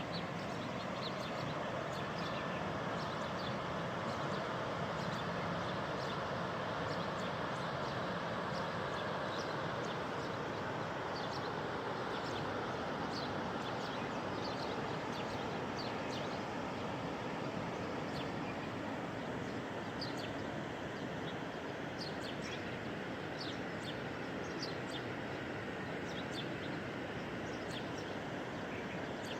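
Flash-flood water rushing steadily down a wadi, with birds chirping in short, scattered calls over it.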